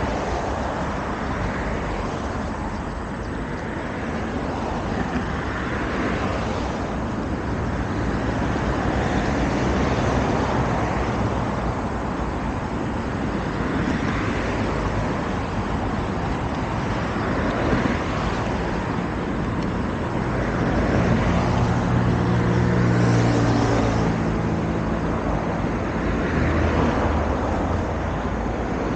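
Road traffic on an adjacent multi-lane road, cars passing one after another in swells of tyre and engine noise. About three quarters of the way through, a heavier vehicle's engine hums low as it goes by.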